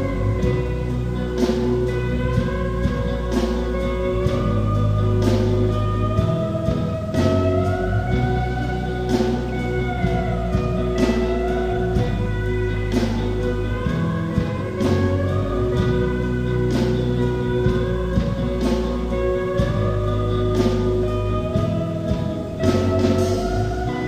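A rock band playing an instrumental passage: a guitar melody with sliding notes over bass and a drum kit.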